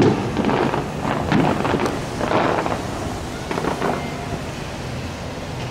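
Distant fireworks booming and rumbling in irregular, muffled thuds, with wind noise on the microphone and a steady low hum underneath.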